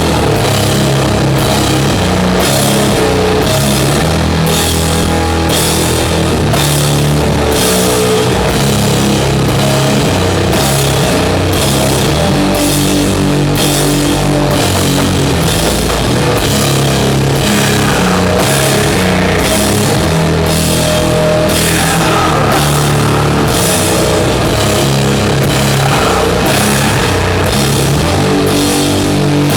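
Doom metal band playing live and loud: heavy distorted guitars and bass holding low notes over slow drums that strike about once a second.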